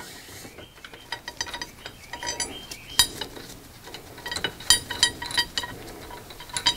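Metal tools clinking and rattling: a steel yoke puller and a large wrench being handled against the differential's pinion yoke, giving many short ringing metallic clicks, the sharpest about three seconds in and more crowded in the second half.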